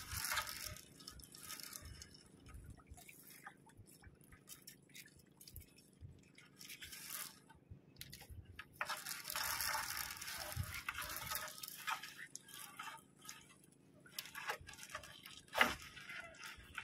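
A fine nylon gill net hauled by hand over the side of a small outrigger boat: the wet mesh rustles and hisses in stretches, with dripping water, scattered light ticks and one louder knock near the end.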